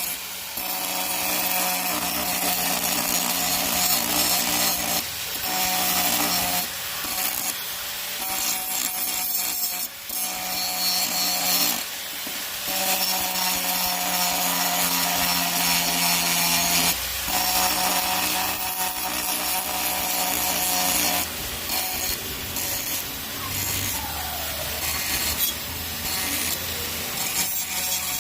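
Angle grinder grinding rust off metal: a steady high motor whine under a harsh scraping hiss. The grinding noise breaks off and shifts several times as the disc is lifted and pressed back on.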